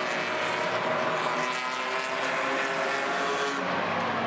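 A field of enduro race cars running laps on an oval track: a steady blend of many engines, with several engine tones over a broad wash of noise.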